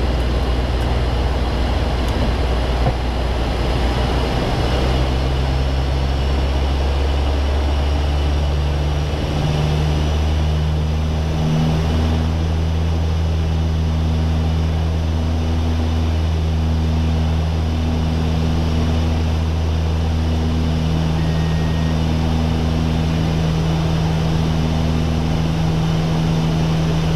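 Cockpit drone of a de Havilland Canada Dash 8-100's twin turboprop engines and propellers on approach, a steady low hum whose tones step up in pitch about eight to ten seconds in.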